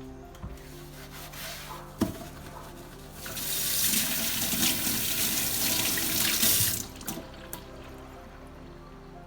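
Water running from a tap into a sink for about three and a half seconds, starting about three seconds in and then shut off. A sharp click comes a second before the water starts.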